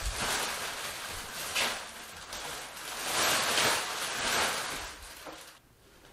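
Plastic wrapping rustling and crinkling in repeated swells as it is pulled off a wooden slab, dying away near the end.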